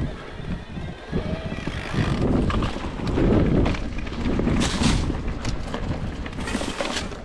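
Cube Stereo Hybrid electric mountain bike riding along a rough trail, with wind rushing over the microphone and the bike's rolling rumble. The rumble swells about two seconds in, and two brief hissing bursts come about four and a half and six and a half seconds in.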